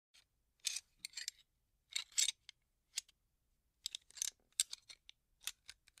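Metal gun parts being handled: irregular clusters of sharp clicks and short scraping rattles, separated by brief silences.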